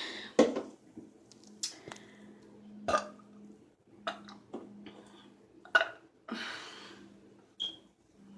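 A woman burping repeatedly, a string of short burps every second or so, the loudest about half a second in. The burps come from drinking carbonated Pepsi.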